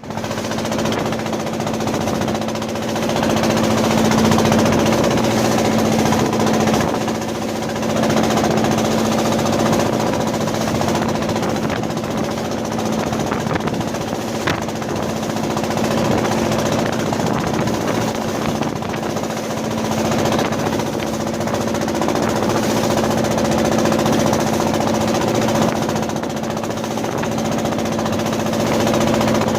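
Woodworking factory machinery running continuously: a steady mechanical hum over a dense, fast rattle.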